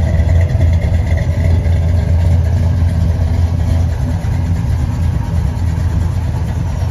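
1984 Chevrolet K20 4x4 pickup's engine idling steadily, a low, even exhaust rumble.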